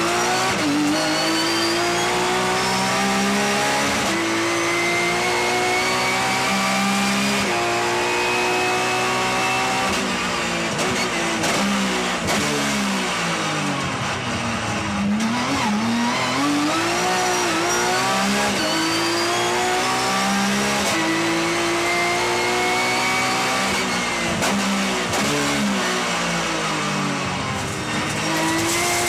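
Porsche 911 GT3 Cup race car's flat-six engine at full throttle, revving up through the gears with quick upshifts. The revs fall low twice, around the middle and near the end, before climbing hard again.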